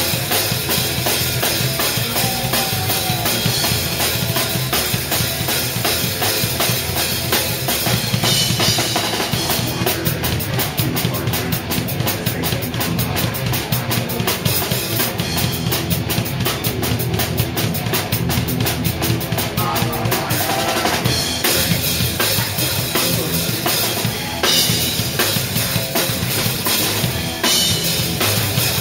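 Drum kit played fast and loud in a live band performance, kick drum and snare hits driving under cymbals and the rest of the band. In the middle stretch the strokes come very fast and even.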